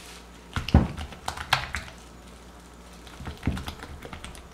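Silicone spatula stirring thickened chocolate fudge mixture in a glass bowl: scraping and knocks against the glass in two flurries, about half a second in and again around three and a half seconds.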